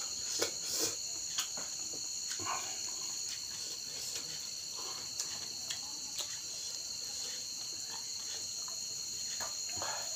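Steady high chirring of crickets, with scattered soft clicks and crunches of raw vegetables being picked up from a stone mortar and eaten.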